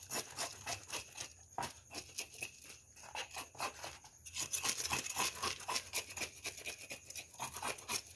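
A knife scraping scales off a tilapia in quick, repeated strokes, each a short rasp.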